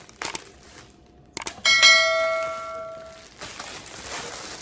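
A single bright bell-like ring, struck once and fading over about a second and a half, just after a couple of small clicks.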